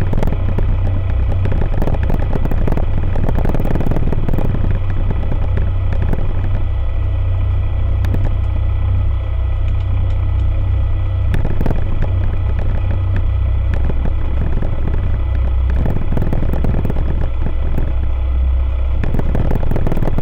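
Aeroprakt A22LS Foxbat ultralight's Rotax 912 ULS four-cylinder engine and propeller running steadily as the aircraft taxis on the ground, heard from inside the cockpit as a loud, constant low drone.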